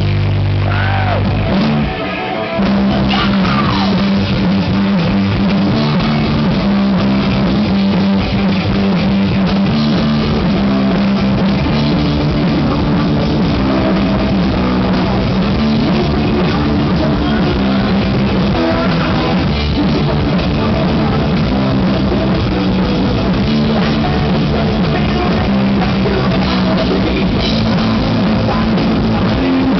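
Rock band playing live on electric guitars and drum kit, with a singer: a held chord, then the full band comes in about two and a half seconds in and plays on steadily and loud.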